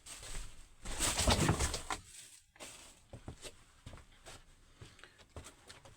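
A man imitating an idling engine's fault noise with his mouth: a loud breathy, cooing burst, then a run of soft irregular clicks.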